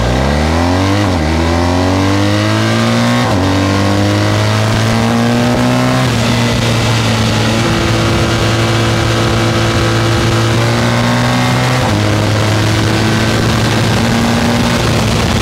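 BMW R1250GS's 1254 cc boxer twin accelerating hard from low speed, pitch climbing through the gears with upshifts about one, three and six seconds in. It then runs steadily at cruising speed, with one more shift near twelve seconds.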